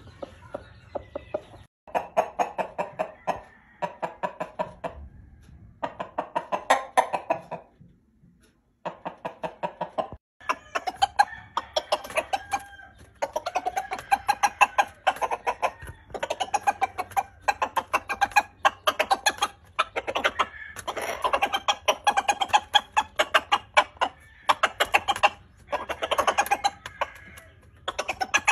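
Chickens clucking in rapid runs of short clucks, with a few brief pauses.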